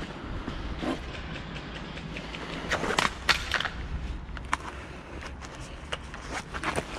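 Footsteps and rustling of a person moving over rough ground, with scattered sharp clicks and snaps, a cluster of them about three seconds in.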